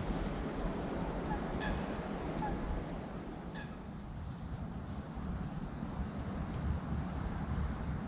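Small songbirds giving short, high chirps and whistles, several calls in the first few seconds and a cluster near the end, over a steady rushing background noise.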